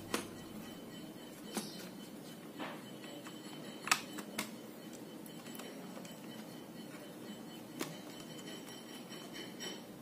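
Scattered light clicks and taps as an Asus X453S laptop motherboard is lowered and pressed into its plastic bottom case, the loudest about four seconds in, over a faint steady hiss.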